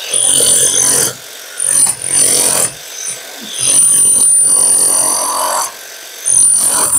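Handheld electric power tool chasing a channel into a plastered brick wall for electrical conduit. It is run in four bursts of one to two seconds each, with a steady high whine over the motor, and there are short pauses between the bursts.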